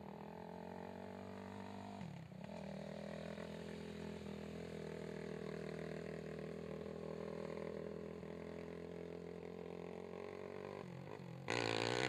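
Racing ATV engine running at low, steady speed with a slightly wavering pitch and a brief dip about two seconds in. Near the end a much louder, brighter burst of engine revving lasts about a second.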